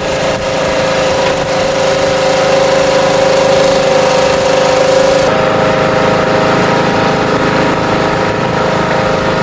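An engine or motor running steadily, a drone with a strong held tone. About five seconds in its pitch steps up slightly and the high hiss above it drops away.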